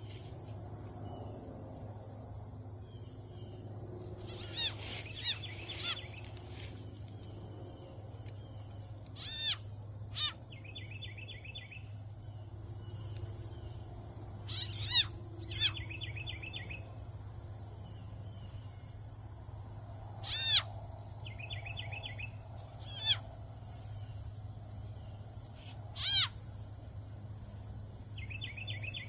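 An unidentified animal calling: short bursts of quick rising-and-falling notes, repeated several times a few seconds apart.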